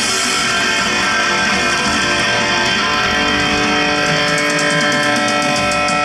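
A rock band playing live: electric guitar chords ringing out over drums, with many held notes. About four and a half seconds in, a quick run of regular cymbal strikes comes in.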